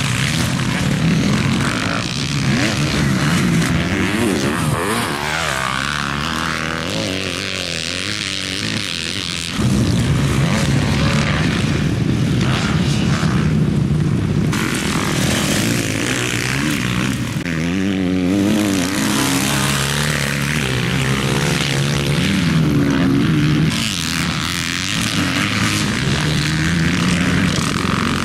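Motocross bikes, among them a 2022 Kawasaki KX450 four-stroke single, revving hard and backing off as they ride the track, the engine pitch climbing and dropping again and again. About ten seconds in the sound abruptly gets louder.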